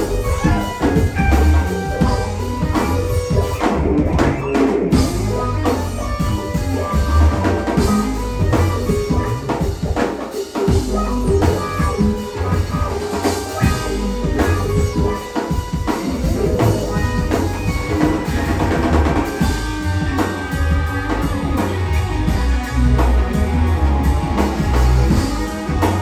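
Live band playing: drum kit keeping a steady beat under electric bass, electric guitar and keyboards, with a heavy low bass end.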